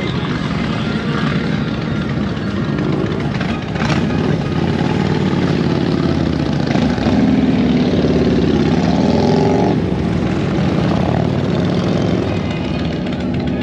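A stream of cruiser and touring motorcycles riding past, their engines rumbling continuously. The sound swells loudest about seven to ten seconds in as the nearest bikes pass.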